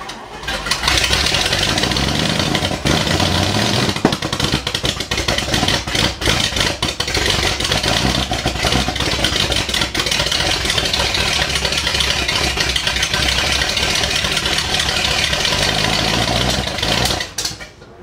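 Old Ford Thunderbird V8 catching under a second in and running loud and rough, with irregular pops, then cutting off suddenly near the end. This is its first start after sitting since 1973, and it still needs tuning to run smoother.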